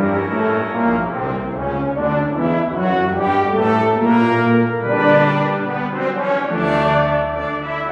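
Brass ensemble with trombones, together with a digital organ, playing full sustained chords that change about once a second over a low bass line.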